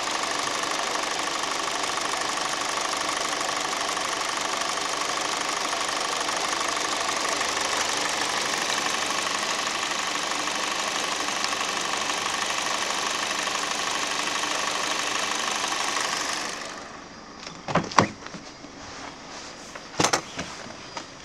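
Kia Cerato's 2.0-litre G4NA four-cylinder petrol engine idling steadily, heard close up at the open engine bay. About 16 seconds in, the engine sound drops much quieter, and a few sharp knocks follow near the end.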